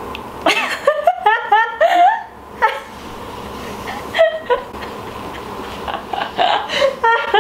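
A woman laughing: a quick run of high-pitched giggles from about half a second in to two seconds, then a few shorter laughs near the end.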